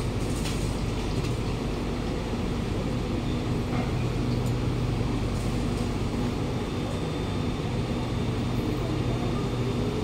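Steady low hum of a Kawasaki Nippon Sharyo C751B train standing at a station platform, heard from inside the car: several low humming tones over a noisy background, with a few faint clicks.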